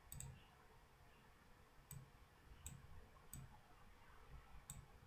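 Faint computer mouse clicks over quiet room tone: a quick pair at the start, then four single clicks at uneven gaps of about a second.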